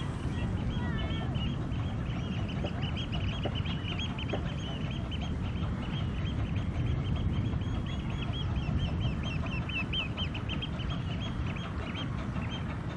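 Birds calling in a quick, chattering run of short calls, several a second, over a low steady rumble.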